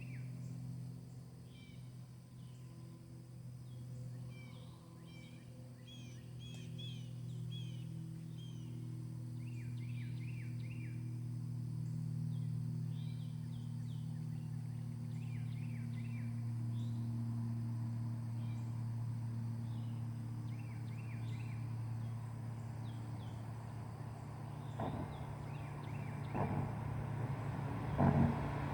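2008 BMW M6's V10 idling steadily, with birds chirping over it. Near the end, a few knocks and rushes of noise break in.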